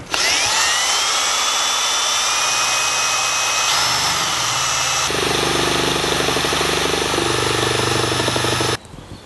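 Cordless drill spinning a mixer rod through polyester resin thickened with talc in a plastic tub. The motor whine rises as it comes up to speed, runs steadily with a change in pitch twice midway, and cuts off suddenly near the end.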